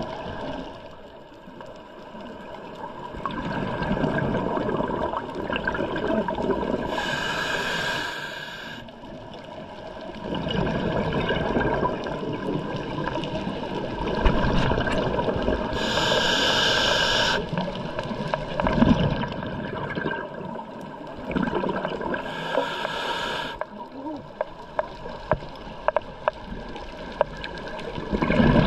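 Scuba diver's regulator breathing underwater. There are three hissing inhalations, each lasting a second or two and spaced roughly seven seconds apart, with a rumble of exhaled bubbles between them. Near the end comes a run of short clicks.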